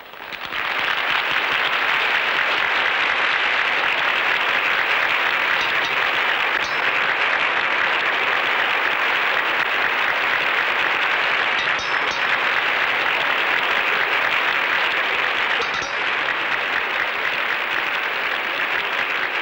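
Audience applauding, a steady sustained clapping that starts about half a second in.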